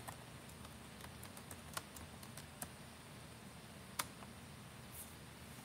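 Faint, irregular keystrokes on a computer keyboard as a search is typed, with a sharper click about four seconds in.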